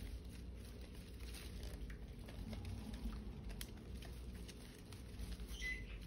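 Budgerigars rustling and scrabbling among the leaves of a plant, with light scattered taps and scratches, and one short chirp near the end.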